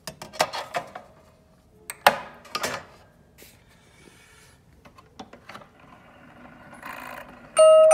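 Steel disc being fitted to a Kalliope disc music box: clacks and scraping as the metal disc and pressure bar are handled and clamped. Near the end the box starts to play, its steel comb plucking bright, ringing notes.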